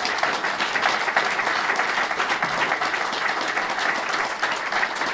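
Audience applauding steadily: dense, even clapping from a roomful of people.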